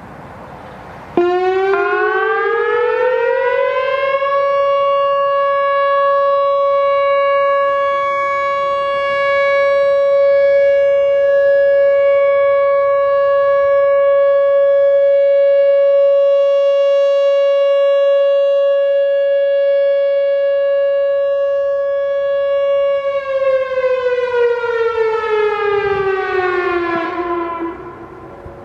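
Whelen WPS-3000 series electronic outdoor warning siren sounding a steady alert signal. It starts suddenly about a second in, climbs in pitch over a few seconds to a steady 560 Hz tone, and holds there. Near the end it slides back down and stops.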